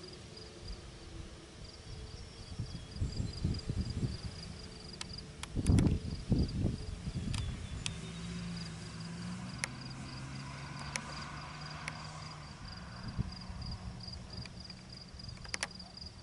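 Outdoor rural ambience: an insect chirring with a steady, rapid high-pitched pulse. A few low thumps about four to seven seconds in are the loudest sounds, and a faint low hum comes in around the middle.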